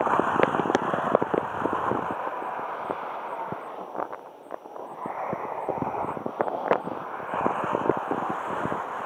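Wind rushing and buffeting over the camera's microphone in paraglider flight: a steady rush full of irregular crackling pops, easing for a moment about halfway through and then picking up again.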